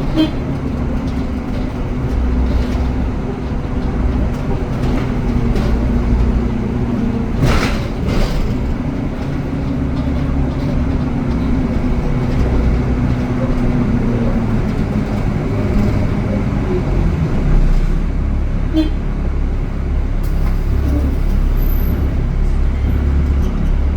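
Bus engine running steadily amid road traffic, a continuous low rumble whose pitch shifts now and then, with a brief rush of noise about seven and a half seconds in.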